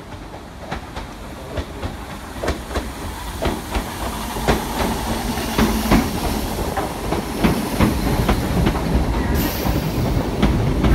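Great Northern electric multiple unit running into the platform, its wheels clicking over the rail joints in a quickening series. The rumble grows steadily louder as the carriages pass close by, and a high hiss comes in near the end.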